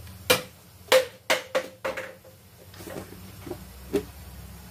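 Metal kitchen utensils clinking: five sharp, briefly ringing clinks in quick succession in the first two seconds, then two softer knocks near the end.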